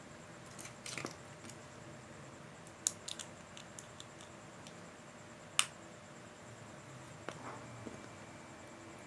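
Scattered small clicks and taps of hand work on small parts and tools, the sharpest about five and a half seconds in, over a faint steady hum.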